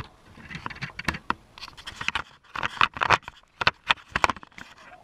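Irregular clicks, knocks and scrapes of plastic handled close to the microphone: Lego pieces and the camera among them being pushed and bumped by hand.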